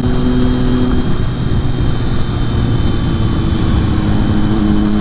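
Triumph Street Triple 675's inline-three engine running steadily at highway cruising speed through an SC-Project exhaust with its baffle removed, under a steady rush of wind and road noise.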